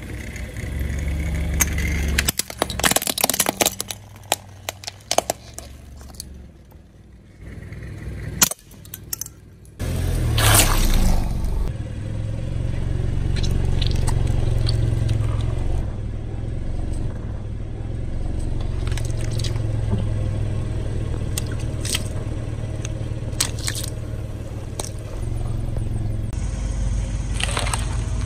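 A car tyre rolling over and crushing something brittle: a quick run of sharp cracks and crackling a couple of seconds in, under the low running of the car's engine. About ten seconds in the engine gets louder, with scattered cracks after that.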